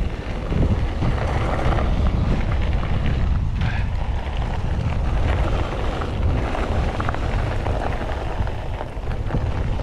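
Mountain bike riding along a dirt trail: steady wind rumble on the microphone over the tyres' rolling noise, with small rattles and clicks from the bike throughout.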